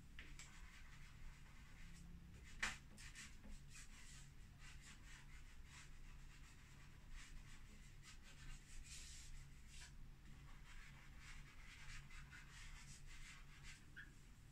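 Faint scratching of a dry drawing stick on the painting board in many short, squiggly strokes, with one sharp tap about two and a half seconds in. A low steady hum runs underneath.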